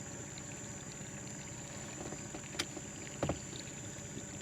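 Steady low rumble and hiss of a small boat on the river, under a constant high-pitched whine. There is a sharp click about two and a half seconds in and a dull knock soon after.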